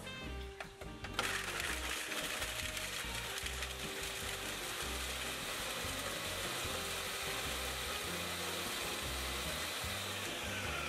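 Ninja countertop blender switched on about a second in, its motor and blades running steadily as they chop hot peppers and garlic cloves, then stopping just before the end.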